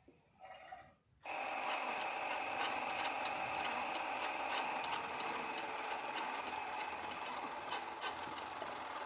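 Miele toy washing machine running its wash cycle: the small motor turning the drum with a steady whirring sound and faint regular ticking, starting up about a second in after a brief pause.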